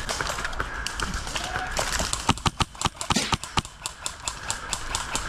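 MTW Billet HPA airsoft rifle firing a quick string of single shots, sharp cracks that come a few a second, most densely in the second half.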